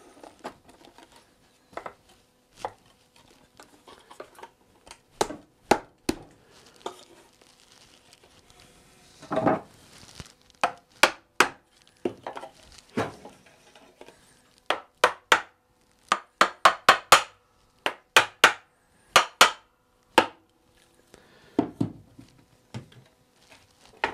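Wooden chair legs and stretchers knocking and clunking as they are worked into the glued sockets of a wooden rocking-chair seat, and the chair is set down and turned over on the bench. Short sharp knocks at irregular intervals, coming thicker and faster in the second half, with a longer clatter about ten seconds in.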